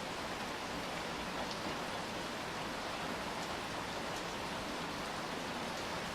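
Steady rain falling on surfaces, an even hiss with a few faint individual drop ticks.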